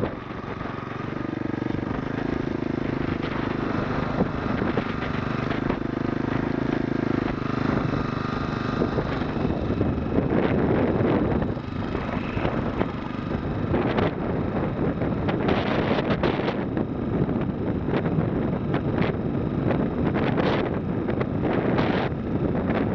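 Single-cylinder 5 hp Briggs & Stratton lawnmower engine driving a motorized bicycle, running steadily under way, with a rush of wind on the microphone. The engine note is clearest in the first several seconds, and later the wind buffeting takes over.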